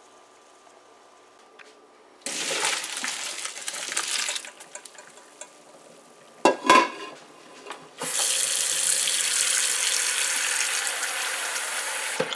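Pot of boiled noodle water tipped into a plastic colander in a stainless steel sink, splashing for about two seconds. Around the middle, one sharp knock, which fits the pot striking the sink. Then a kitchen tap runs steadily into the pot for about four seconds, the cold-water rinse that stops the noodles cooking.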